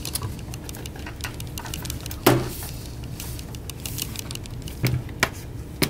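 Plastic clips of a laptop's aluminium bottom panel clicking into place as the panel is pressed down along its edges: a series of sharp clicks, the loudest about two seconds in and a few more near the end.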